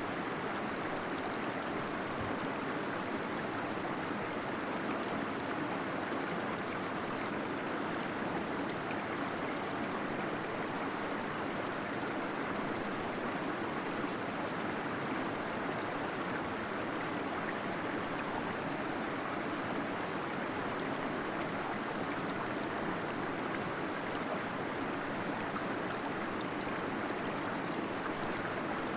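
Small waterfall splashing and gurgling steadily inside a cave, an even, unbroken water sound.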